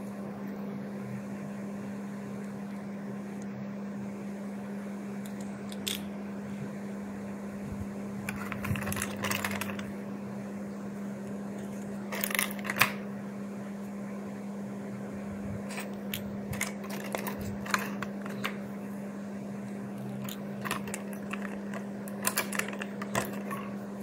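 Small toy cars being handled and lifted out of a clear plastic blister tray: scattered clicks and short crinkles of plastic, in several clusters, over a steady low hum.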